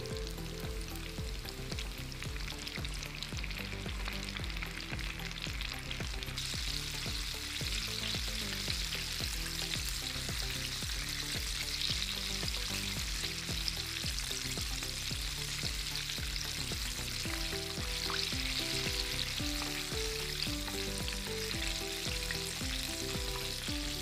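Flour-battered chicken drumsticks deep-frying in hot oil in a pot: a steady, dense crackling sizzle that grows louder about six seconds in.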